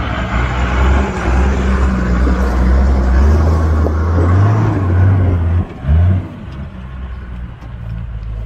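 Off-road 4x4 engine working hard under load while towing another 4x4 up a steep slope on a rope. The revs climb about four seconds in, cut off abruptly about halfway through, flare once more briefly, then settle lower and quieter.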